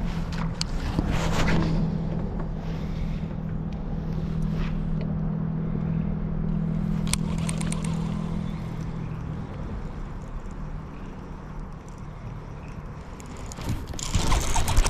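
Steady low hum of the kayak's Torqeedo 1103 electric outboard motor running, fading out after about nine seconds. Near the end comes a louder rustle and scrape as the fishing rod is swept up.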